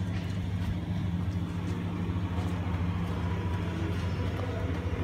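Steady low motor hum, even and unbroken, over general street noise.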